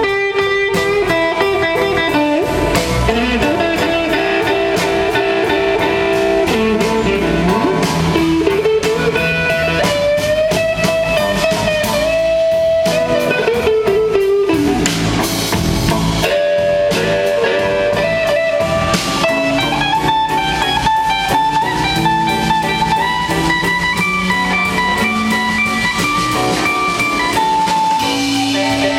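A live blues-rock band playing, with electric guitar lead lines over a drum kit. The guitar holds notes and glides and bends between them.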